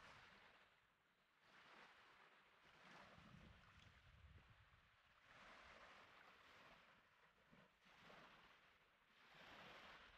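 Faint sea waves washing on the shore: a soft rush of surf that swells and fades every couple of seconds.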